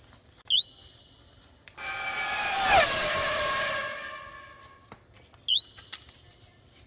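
An edited-in sound effect: a high whistle note that swoops up and holds for about a second, then a lower horn-like blast of several notes at once that dips in pitch near its end and fades out over about two seconds. The high whistle note starts again near the end.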